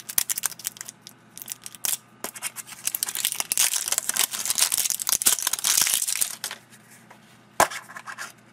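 Plastic shrink-wrap label being torn and peeled off a small plastic toy capsule: crinkling and crackling, densest in the middle, followed by a single sharp click near the end.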